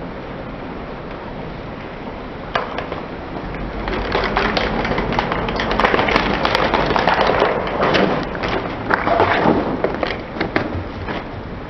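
Car tyre rolling slowly over plastic clothes pegs and hollow plastic toys, crushing them: a single crack, then a long run of rapid cracking and snapping plastic that fades off near the end.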